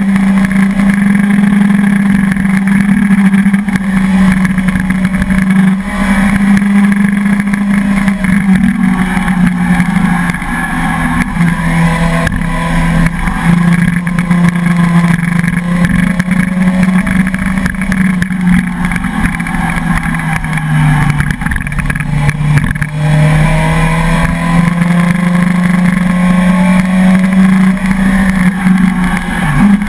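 Suzuki sport motorcycle's engine running at a steady pace while climbing. The note drops slightly about ten seconds in and again a little past twenty seconds, then rises again.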